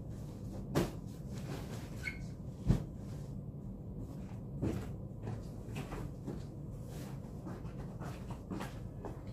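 Pillows and bedding being handled and set down, giving a few soft thumps and knocks, the sharpest about three seconds in, over a steady low background hum.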